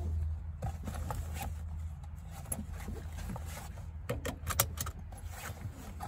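Car seatbelt webbing being pulled and slid around a fabric pet carrier, with a quick cluster of sharp metal clicks from the seatbelt hardware about four seconds in.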